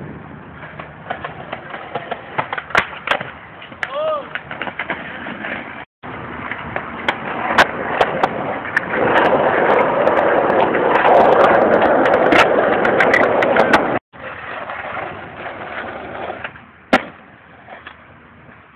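Skateboard wheels rolling over concrete, with several sharp clacks of the board hitting the ground. The rolling noise is loudest in the middle stretch, and the sound cuts out for an instant twice.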